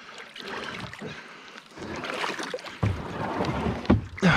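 Shallow river water sloshing and splashing around a plastic kayak hull as the paddler steps out of the boat into the shallows, with a few light knocks against the hull; it grows louder from about two seconds in.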